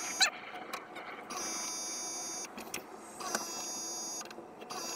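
A small electric motor whining in short runs of about a second each, starting and stopping abruptly several times with clicks in between.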